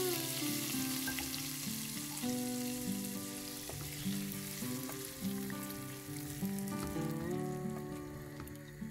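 Hot garlic-tempered oil (baghar) sizzling as it meets the curry in the pot, stirred in with a wooden spoon; the sizzle dies down toward the end. Soft background music with plucked notes plays underneath.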